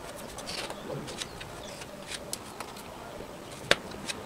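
Faint scattered clicks and light scraping as fingers and a small piece of card work black etching ink into a paper collagraph plate, with one sharper click about three and a half seconds in.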